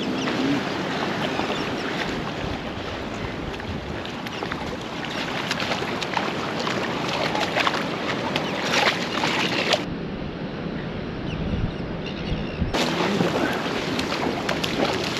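Surf washing in over shallow rocks and sand, with wind on the microphone and sharp splashing in the shallows through the middle.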